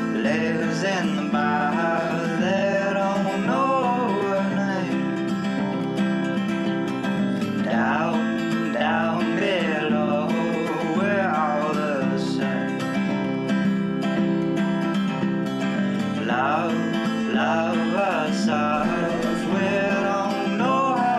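Background music with an acoustic guitar playing over a steady low sustained tone.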